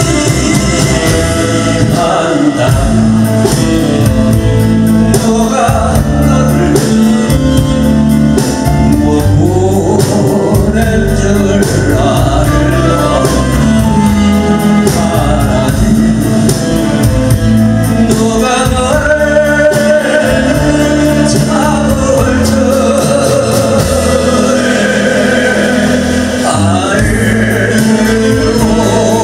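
A man singing a Korean song into a microphone, backed by a live band with a steady drum beat.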